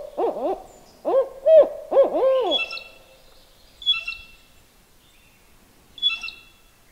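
Barred owl hooting: a rhythmic series of hoots, the last one drawn out, about two and a half seconds in. A few short, high calls from another bird follow.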